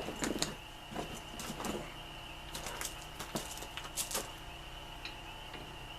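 Scattered light clicks and knocks of a pedal and an Allen wrench being handled against a mountain bike's crank while the second pedal is started. Most of them fall in the first four seconds or so, over a faint steady high-pitched tone.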